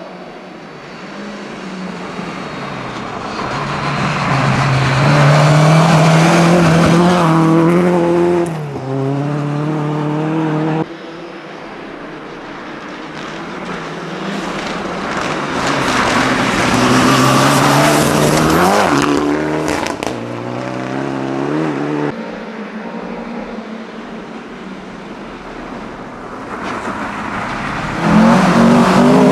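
Rally cars at full throttle approaching and passing one after another, engines revving hard, their pitch climbing and then dropping at each gear change. The sound breaks off suddenly twice where one car gives way to the next, and the last car near the end is the loudest.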